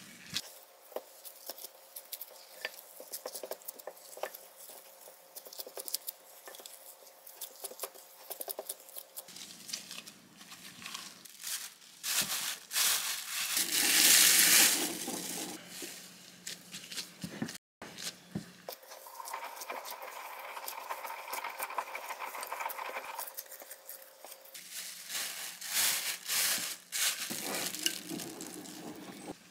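Gloved hands kneading soft bread dough in a glass bowl, with many small sticky clicks and pats. About halfway through, a clear plastic bag crinkles loudly as it is spread over the bowl, and more plastic rustling follows near the end.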